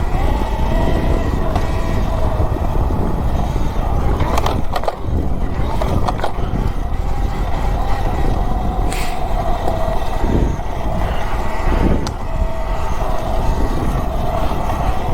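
72-volt Talaria Sting electric dirt bike riding on a trail: a steady electric motor whine that wavers slightly, over heavy rumble of tyres and wind, with a few sharp knocks. The rattling comes from a loose horn and a battery whose front rubber mount has broken off.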